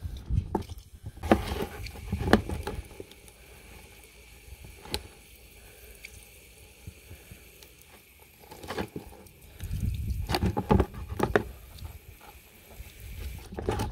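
Aerosol contact cleaner spraying onto a cordless impact wrench's switch, circuit board and brushless motor in a sink, flushing grime out. Knocks and clatter come as the wet parts are handled and turned over, busiest about a second in and again about two-thirds of the way through.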